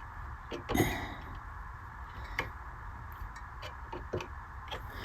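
Scattered light clicks and taps of metal tools against a guitar fret, during fret removal with a soldering iron. A steady low hum runs underneath.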